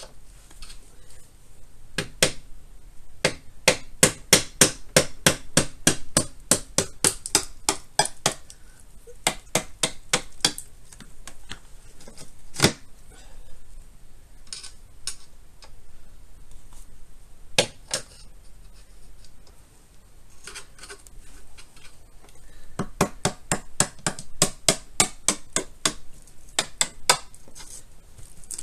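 Screwdriver working into the sealant-filled seam between an electric scooter's footplate and deck to pry them apart: runs of sharp metallic clicks and taps, several a second, with one single louder knock about halfway through.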